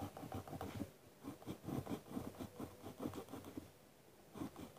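Pencil scratching on paper in short, quick, repeated strokes, pressed down hard to outline a drawn letter, with a short pause near the end.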